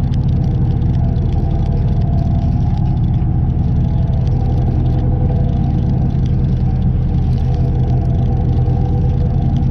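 A motor running steadily, its hum holding one unchanging pitch with no rise or fall.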